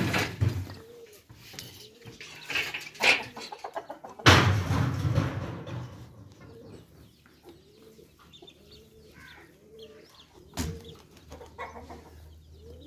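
Domestic hens clucking over and over in short, low calls about once a second. Several loud noise bursts break in, the loudest about four seconds in and lasting about a second.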